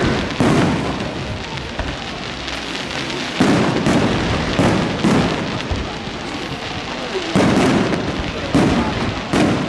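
Aerial fireworks display: shells launching and bursting in a rapid series of loud bangs, about seven in a few seconds, over a continuous crackle of bursting stars.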